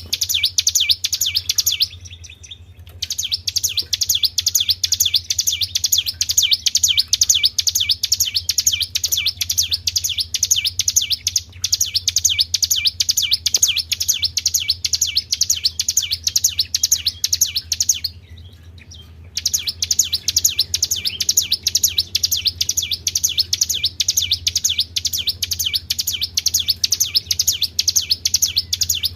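Tribel bird call played as a lure: a fast, evenly repeated run of high chirps, several a second, breaking off twice for about a second. A steady low hum runs underneath.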